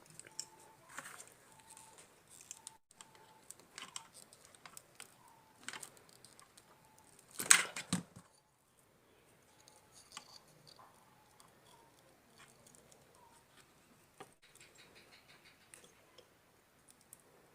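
Scattered small clicks and taps from handling the parts of a disassembled soldering iron as a wire is fitted into it, with one louder clatter about halfway through.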